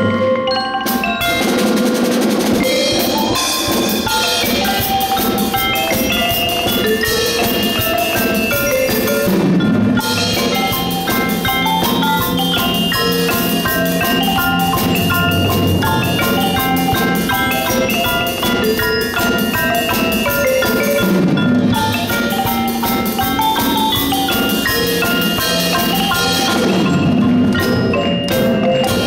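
A percussion ensemble playing a lively tune on marimbas and other mallet keyboards, quick runs of struck notes throughout, backed by drums.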